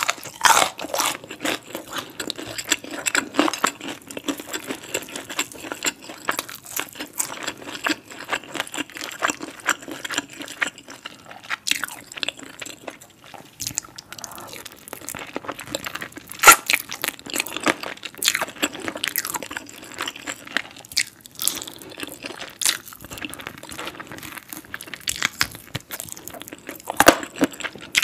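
Close-miked chewing of crispy fried chicken dipped in cheese sauce: a steady run of crackly crunches and mouth clicks, with one louder crunch a little past halfway.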